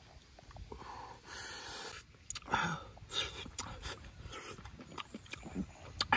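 Close-up eating sounds: roasted snail meat slurped off a skewer and chewed, with sharp breaths through the nose and a few light clicks.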